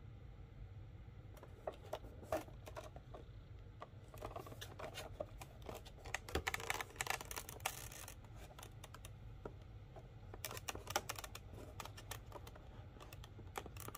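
Cardboard box of a 1:400 diecast airliner model being handled and opened: scattered light clicks and taps, with a longer scraping slide about halfway through as the box comes out of its sleeve, then more clicks near the end.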